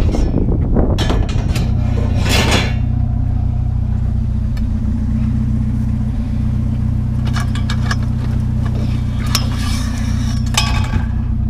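A vehicle engine idling steadily under clanking and scraping of metal scrap being handled and loaded, in a burst in the first couple of seconds and again in the last few seconds.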